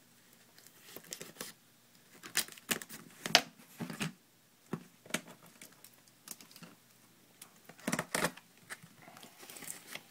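A sealed cardboard box being slit and opened by hand: scattered short cuts, tears and scrapes of the seal and cardboard, in a few clusters with quiet between.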